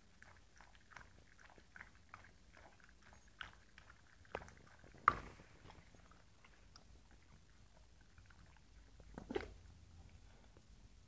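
Siberian husky puppy chewing: a run of small wet clicks and smacks, with a few louder ones, the loudest about five seconds in and another near nine seconds.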